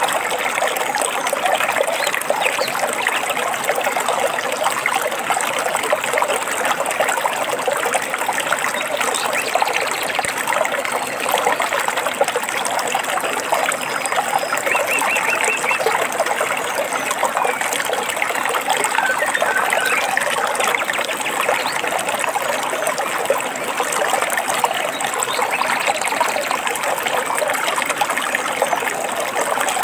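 Small stream trickling and splashing steadily over stones. A bird is faintly heard over it: a short rapid trill about halfway through and a few brief notes a few seconds later.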